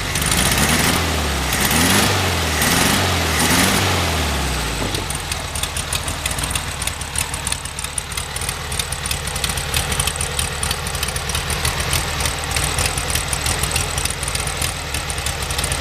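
Air-cooled VW 1600 dual-port flat-four with a small Engle racing cam, revved in several quick throttle blips in the first few seconds and then settling to a steady idle. It has the throaty sound and slightly raised idle that the cam gives.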